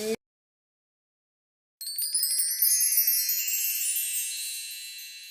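A shimmering chime sound effect: a cascade of many high bell-like tones that enters suddenly about two seconds in, after dead silence, and slowly fades out.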